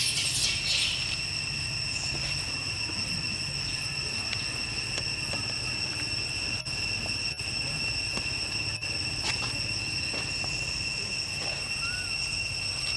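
Insects droning steadily, a continuous high-pitched whine on two fixed pitches, with a brief noisy rustle-like burst at the very start.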